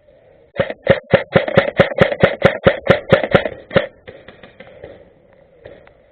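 Airsoft gun firing a rapid string of about sixteen sharp shots, about five a second, for about three seconds.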